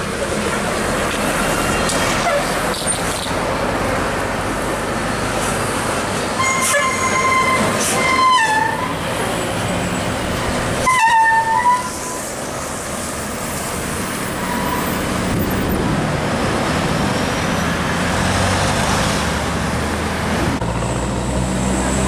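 Tour buses' diesel engines and tyres running past steadily, with a bus's musical air horn (telolet) sounding three short blasts a little under halfway through, the second and third sliding down in pitch at their ends.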